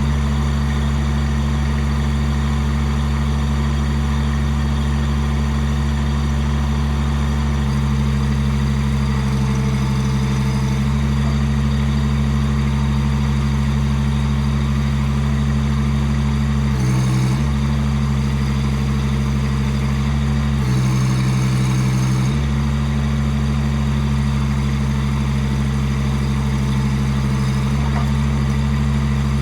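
Chinese mini excavator's engine running steadily at full throttle after being run up from idle. Its note shifts briefly about 17 seconds in and again around 21 to 22 seconds.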